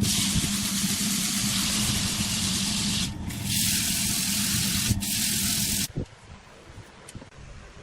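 Wood lathe running with a steady motor hum under a loud hiss of wood being worked on the spinning piece, dipping briefly twice and cutting off suddenly about six seconds in.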